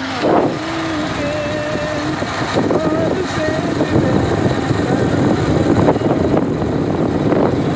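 Motorcycle being ridden along a road: engine running under a steady rush of road and wind noise, with a few faint wavering tones in the first few seconds.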